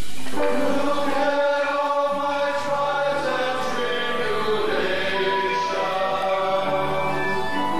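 A male chorus singing together in a slow, chant-like line, the voices held and sustained over low musical accompaniment, in a stage musical.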